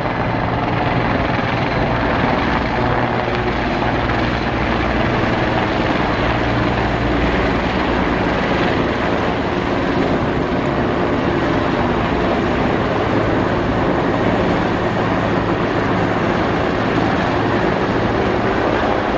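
Mil Mi-24 attack helicopter flying past, its rotor and turbines making a loud, steady drone.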